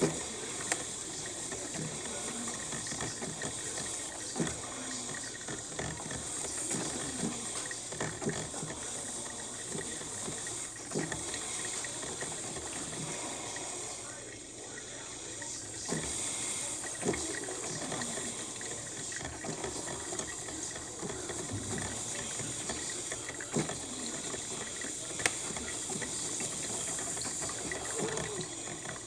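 Cuisinart drip coffee maker brewing: a steady hiss of heating water and steam, with occasional sharp pops and gurgles as the water is pushed up through the machine.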